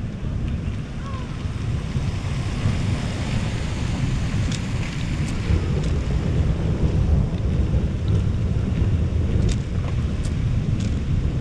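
Wind buffeting the camera's microphone: a steady rumbling rush. A few light, sharp ticks come in from about halfway through.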